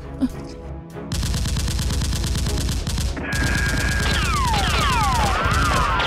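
Rapid automatic gunfire dubbed in as a sound effect over the blaster fight, starting about a second in. From about halfway, falling whistling whizzes like passing bullets or ricochets are layered over it.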